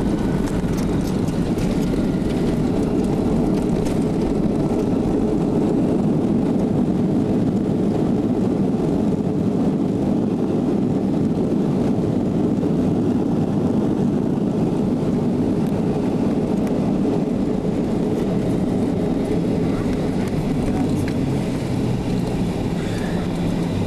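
Steady, loud cabin rumble of an AirTran Boeing 737 heard from the rear seats as it rolls out after landing: engine noise and airflow.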